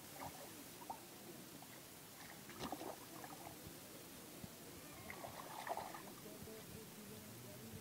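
Faint sloshing of hands groping through shallow muddy water, with brief louder splashes twice, a little over two and a half seconds in and again near six seconds.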